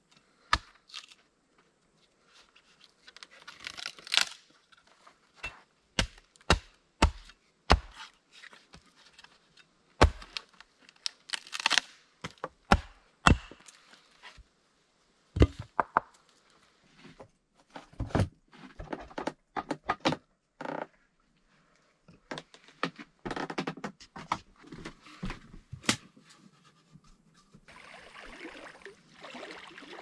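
Hatchet strikes splitting a wooden log lengthwise: irregular sharp knocks, some followed by a brief cracking, tearing sound as the wood fibres part.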